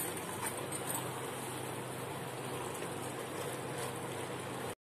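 Mutton, onions and ginger-garlic paste sizzling in oil in a pressure cooker as they fry, stirred with a metal spatula; a steady sizzle with a sharp click of the spatula at the start. The sound cuts out for a moment near the end.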